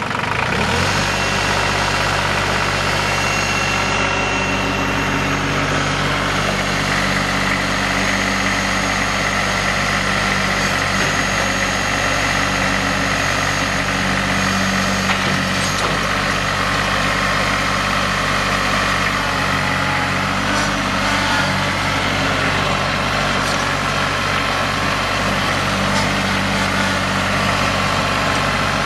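2004 New Holland TC33DA tractor's Shibaura 1.5-litre three-cylinder diesel engine running steadily.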